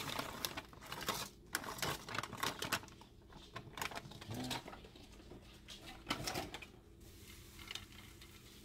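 Frozen peas and diced carrots clicking and pattering as they tumble from a plastic bag onto an earthenware tagine and are spread by hand. The clicks come thick for the first few seconds, then thin out to scattered taps.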